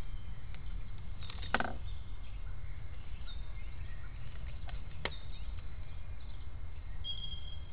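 Low steady rumble with faint bird chirps, broken by a wooden knock with a short ring about a second and a half in and a lighter click about five seconds in, from a red squirrel working at a wooden feeder box.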